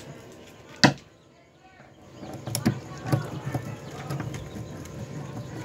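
Handling noise inside a plywood incubator box lined with foil insulation: one loud sharp click about a second in, then from about two seconds in a run of lighter clicks and knocks as parts are fitted and adjusted by hand.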